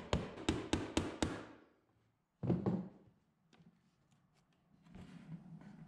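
Hammer tapping a small nail, held in needle-nose pliers, into a painted wooden frame: quick light taps, about four a second, that stop about a second and a half in. A single thunk about two and a half seconds in, then a few faint clicks.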